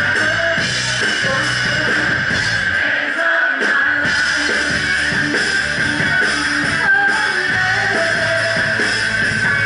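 Live rock cover band playing loud: electric guitar over bass and a Ludwig Vistalite drum kit. The bass and drums drop out for about half a second around three seconds in, then the full band comes back.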